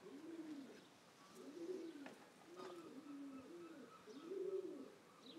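Pigeon cooing faintly: a slow series of low coos, each note rising and then falling, repeated about five times.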